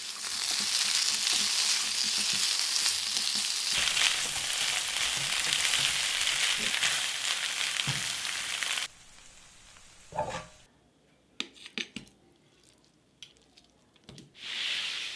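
Chicken wings sizzling in hot oil in a pan while being stirred, with light knocks under the sizzle. About nine seconds in the sizzling stops suddenly, leaving quiet with a few scattered knocks and a brief hiss near the end.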